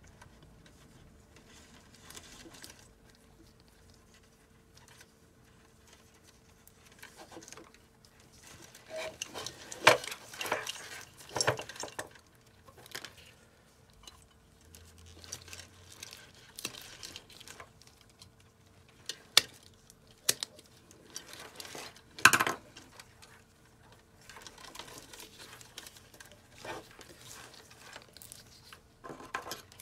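Bundles of insulated power-supply wires handled and sorted by hand: soft rustling and light rattling, broken by a handful of sharp clicks from wire cutters being worked among the wires, the loudest about ten, twelve and twenty-two seconds in. A faint steady hum runs underneath.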